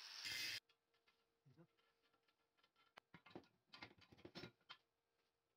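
Angle grinder running on steel, cut off abruptly about half a second in. Then near silence with faint scattered clicks and scrapes of steel parts being handled, mostly in the second half.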